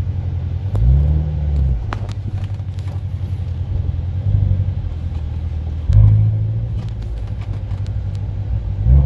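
Supercharged V8 idling with an even pulsing beat, heard from inside a C7 Corvette Z06's cabin. It is broken by short throttle blips that rise and fall, about a second in, near the middle and near the end.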